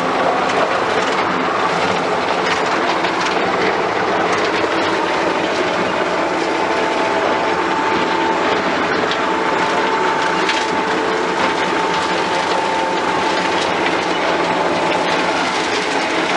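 Skid steer running steadily while its mower deck, a rotary PTO mower converted to run on a hydraulic motor, cuts grass. A steady whine joins about six seconds in.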